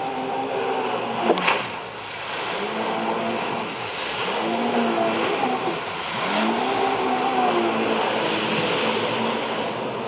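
Yamaha FX HO jet ski's four-stroke engine revving up and down as the throttle is worked, its pitch rising and falling several times over a steady rushing hiss. A sharp click about a second and a half in.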